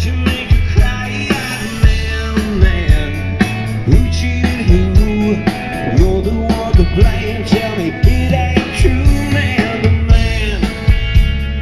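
Rock band playing live: drum kit with a steady kick-drum beat, bass and electric guitar, in an instrumental stretch of the song.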